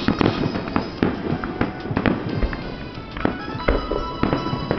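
Aerial fireworks shells bursting in quick succession: a string of sharp bangs and crackles, several a second.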